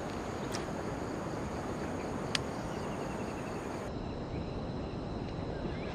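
Steady outdoor background hiss with faint insects chirping, a short run of even high ticks about halfway through, and a couple of sharp clicks.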